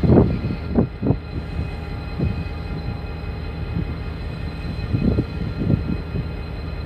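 Low rumble of a train at the station, with faint steady high tones over it. Irregular low thumps come in the first second and again about five seconds in.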